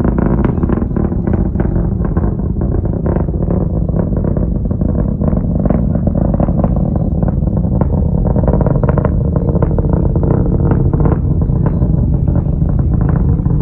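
Distant rocket engine during ascent: a steady, loud low rumble shot through with irregular crackling.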